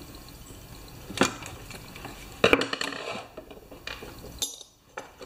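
Hand tools and small chainsaw parts being handled on a workbench. There is a sharp knock about a second in, then a louder rattling clatter about two and a half seconds in, followed by a few lighter clicks.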